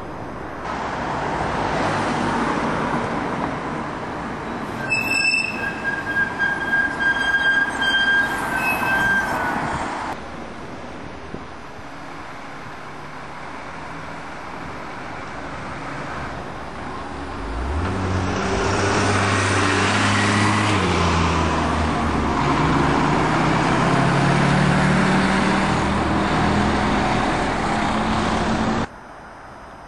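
Diesel train: a high metallic squeal at several pitches about five to nine seconds in, then after a quieter stretch the diesel engine revs up, its pitch climbing in steps as it pulls away. The sound cuts off suddenly near the end.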